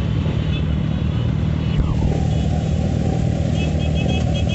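Many motorcycle engines idling together in a steady low rumble. Near the end, a quick run of short high beeps, about three a second.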